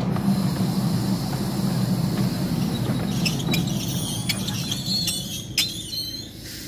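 Miniature railway train running along the track, heard from a carriage as a steady low rumble of wheels on rail. From about halfway, high-pitched metallic squeals and sharp clicks from the wheels join in as it slows on the curve into the station, and the rumble drops away near the end.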